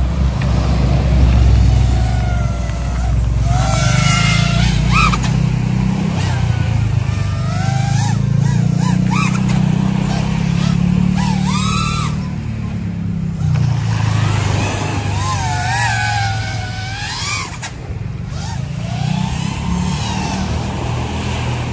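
FPV freestyle quadcopter on T-Motor Velox V3.0 1950 kV motors on 6S, its motors whining in repeated swoops that rise and fall in pitch as the throttle is worked in flight. A steady low rumble runs underneath.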